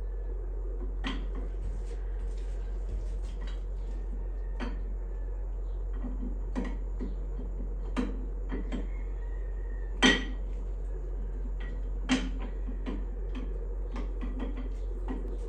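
Irregular metallic clinks and taps of hand tools and engine parts being handled during a camshaft install, with two louder knocks about two-thirds of the way through, over a steady low hum.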